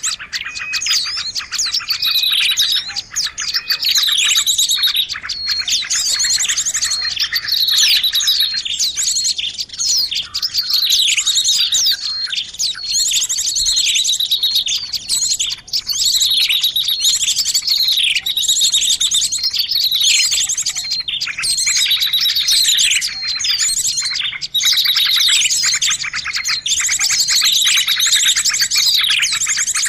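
Small songbirds chirping and trilling without pause: fast high trills and short downward-sliding notes, several birds overlapping. This is a bird-lure recording of small-bird calls, played to draw in small birds.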